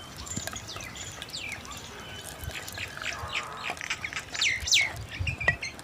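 Birds chirping: many short, quickly falling chirps that overlap and grow busier in the second half, with a few faint clicks among them.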